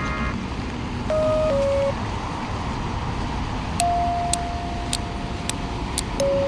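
Steady street traffic noise from passing cars, with a few long held tones over it and scattered sharp ticks in the second half.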